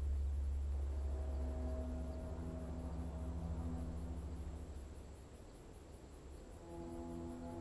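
Insects chirping in an even, high pulse several times a second, over soft sustained music tones and a low drone. The music thins out about five seconds in, and a new chord comes in near the end.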